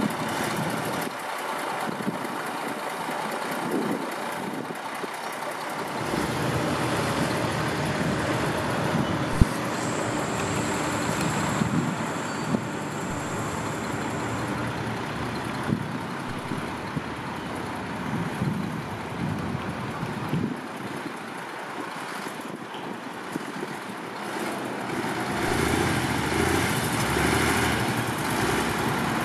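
Caterpillar 140G motor grader's diesel engine working under load, its loudness swelling and sagging, as the grader's wheels spin in soft sand and it cannot move.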